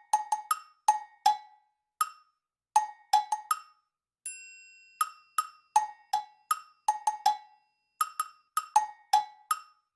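Percussion music: short knocks at a high and a low pitch in a lively, uneven rhythm, with a single ringing chime about four seconds in.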